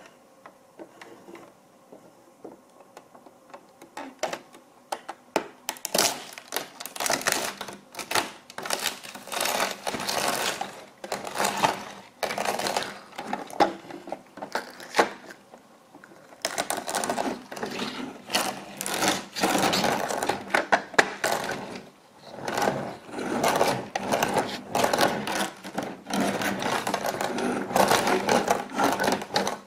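Plastic toy ambulance rolled back and forth over an egg on a wooden floor: its plastic wheels clatter while the eggshell cracks and crackles under them. The dense clicking comes in several stretches, with short breaks about halfway and again about three quarters of the way through.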